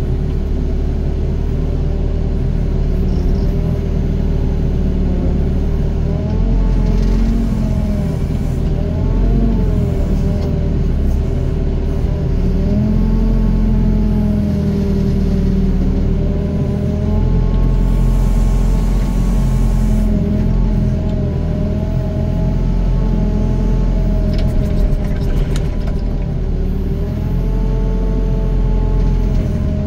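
Doosan DX55 mini excavator's diesel engine running steadily under hydraulic load while it digs and dumps soil, its pitch dipping and recovering every few seconds as the boom and bucket work.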